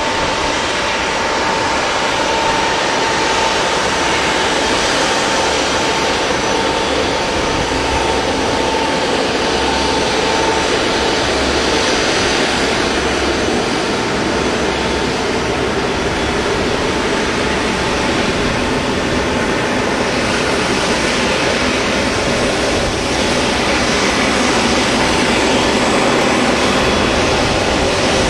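Airbus A380's four jet engines: a steady roar with a whining tone that fades out about halfway through.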